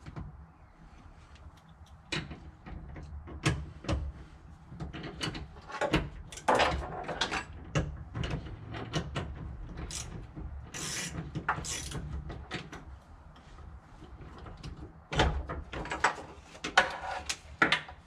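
Seatbelt height adjuster and plastic door-pillar trim being worked by hand: an uneven run of clicks and knocks with stretches of plastic scraping and rattling.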